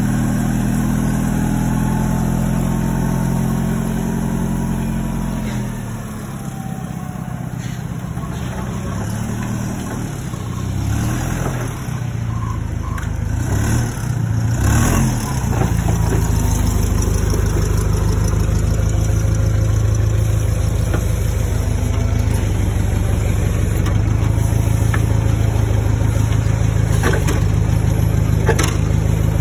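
Propane-fuelled Hyster forklift engine running. Its pitch drops about six seconds in, rises and falls with a few clanks midway, then holds steady and louder for the second half.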